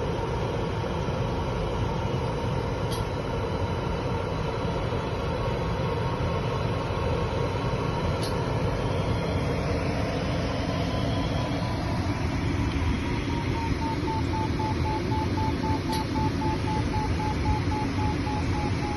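Steady rushing airflow noise inside a glider's cockpit in flight. A thin electronic variometer tone runs throughout, drifting slightly lower in pitch and turning into quick beeps over the last few seconds.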